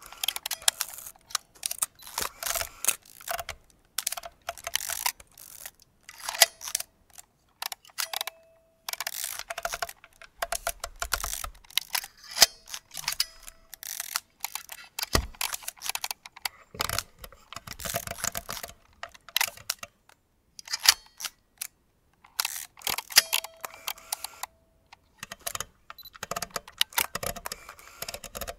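Vintage film camera mechanisms working: many sharp shutter and mechanism clicks and rattles in quick, irregular runs, with a brief ringing tone now and then.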